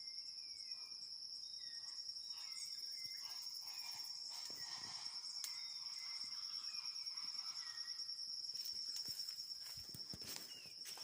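An insect, cricket-like, trilling one unbroken high steady note, with birds giving many short whistled notes, several sliding downward, over it. A few sharp knocks near the end.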